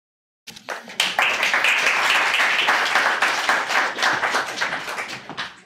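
Audience applauding, building up about a second in and dying away near the end.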